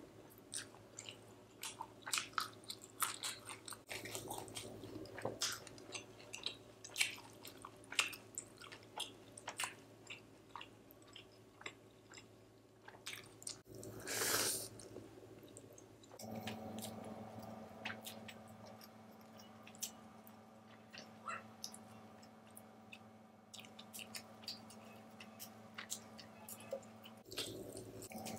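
Close-up eating sounds of a person chewing a mouthful of chicken biryani: wet chewing with many sharp little clicks, and one louder, noisier bite about fourteen seconds in. A faint steady hum runs underneath.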